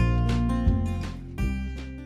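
Background music led by a strummed acoustic guitar, growing quieter near the end.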